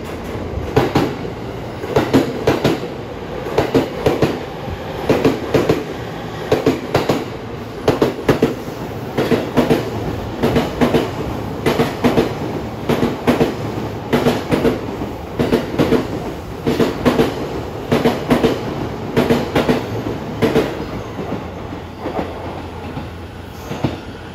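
Wheel-on-rail-joint clickety-clack from a passing JR East E231-1000 and E233-3000 electric multiple unit train: clusters of sharp clicks about once a second as each car's wheelsets cross the rail joints, over a steady running rumble, thinning out near the end.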